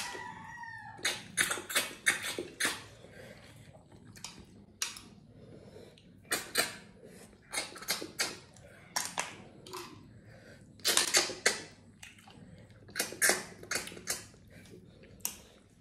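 Sucking slurps as people suck cooked snails out of their shells with their lips, in quick clusters of short, sharp bursts every second or two.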